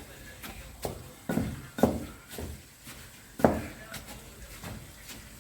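Pestle pounding garlic, salt, chilli and dill seeds in a mortar, about half a dozen uneven thudding strikes, the loudest near the middle.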